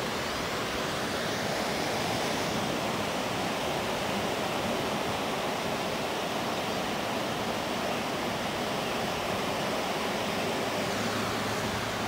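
Surf breaking and washing on a beach, a steady rushing noise.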